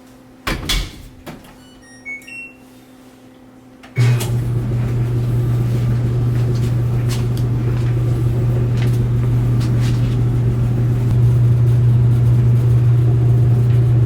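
Microwave oven being started: a couple of knocks as the door is shut, a few short keypad beeps, then about four seconds in it begins running with a steady low hum.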